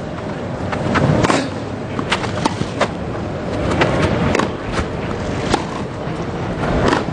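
Tennis racket strikes and ball bounces, a series of sharp knocks at irregular intervals over a steady crowd murmur.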